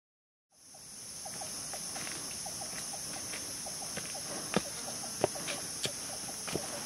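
Forest insects droning steadily at a high pitch, with a short chirping call repeating about twice a second, fading in after half a second of silence. In the second half, four sharp crunching footsteps on dry leaf litter.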